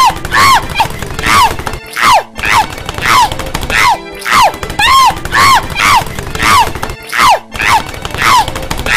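A high-pitched cartoon voice crying out over and over as the character tumbles, about two short yelps a second, each rising then falling in pitch, over a dull low thumping; the short sequence loops, with a brief break every couple of seconds.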